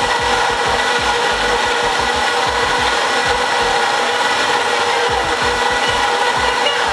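Blendtec blender running at full speed, crushing ice and whole lemon quarters in water: a loud, steady whine over a grinding rush. It stops abruptly near the end.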